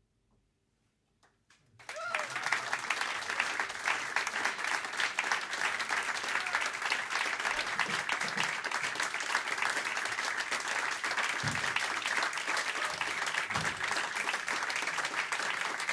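Audience applauding a jazz quartet at the end of a tune, starting suddenly about two seconds in after near silence and then holding steady.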